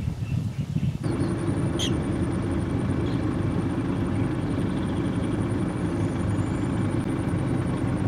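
A steady low rumble starts suddenly about a second in and dominates, with a faint high, evenly pulsing whine above it and a brief sharp chirp about two seconds in.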